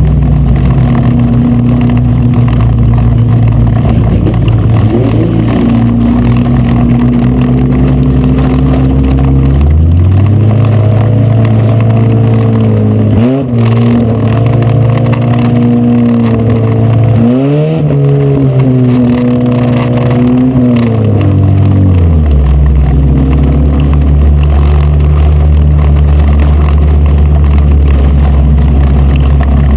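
Dirt-track race car engine heard on board, running loud and hard under throttle. Its pitch climbs about ten seconds in, dips briefly, climbs again and falls back a little after twenty seconds as the driver gets on and off the throttle around the oval.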